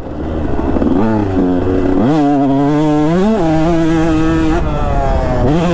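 KTM 150 SX two-stroke single-cylinder dirt bike engine revving under the rider's throttle: the revs sag near the start, climb steeply about two seconds in, drop back, hold steady, then dip and rise again near the end.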